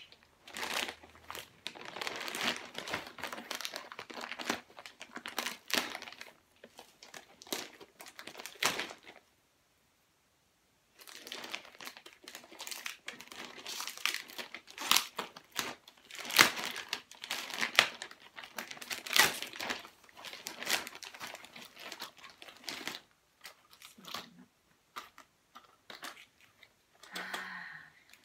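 A FedEx Express plastic mailer bag crinkling loudly as it is handled and pulled open, with sharp crackles and some tearing of the plastic. The rustling stops briefly about ten seconds in, then resumes and dies down near the end.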